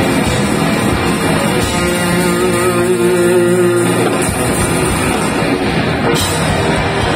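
Heavy metal band playing live at full volume: a rock drum kit with distorted electric guitars. From about two seconds in, the drumming drops away for a couple of seconds under a held guitar chord, then the drums crash back in.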